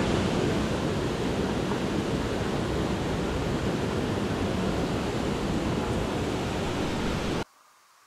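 Waterfall, water falling and rushing in a loud steady hiss, heavy in the low end; it cuts off suddenly near the end.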